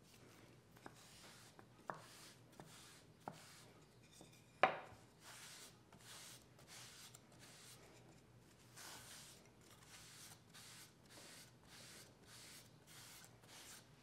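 A few light taps and one louder knock about four and a half seconds in. After that comes a towel rubbing mineral oil into a wooden spoon in soft, even strokes, about two a second.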